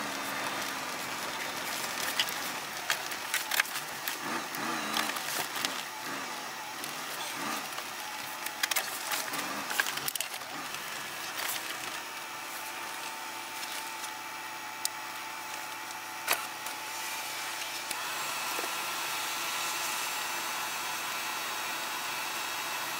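Steady blowing hiss inside a truck's cab, with scattered crackles and clicks through the first half and a faint steady whine coming in about halfway.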